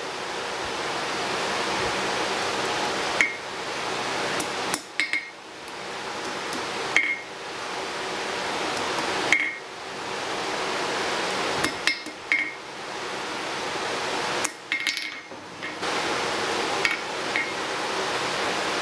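A steady rushing hiss, broken every two seconds or so by short gaps with sharp, ringing metallic clinks as a steel rod and tongs strike the anvil.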